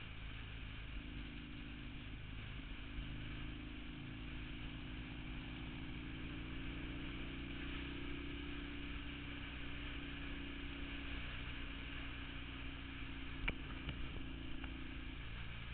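A vehicle's engine hum and road noise while driving at a steady speed, with a short sharp click near the end.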